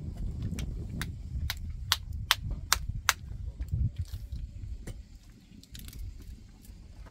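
Small knife clicking against bone and bowl as raw chicken pieces are cut up: a run of about six sharp clicks, roughly two to three a second, in the first few seconds, over a low rumble.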